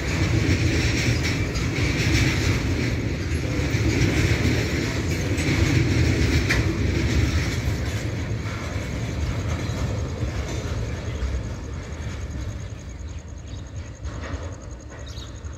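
BTPN petroleum tank wagons of a freight train rolling past on steel wheels, a steady rumble with rapid clacks over the rails, fading away in the last few seconds as the rear brake van passes and the train draws off.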